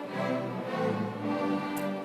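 Middle school orchestra playing sustained notes, with bowed strings to the fore. A short tick sounds near the end.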